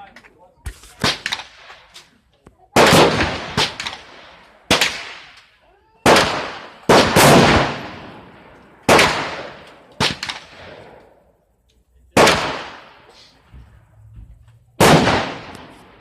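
AR-15 rifle fired one shot at a time, about eight shots at uneven gaps of one to three seconds. Each is a sharp crack with an echo that dies away over about a second, and a few lighter clicks come about a second in.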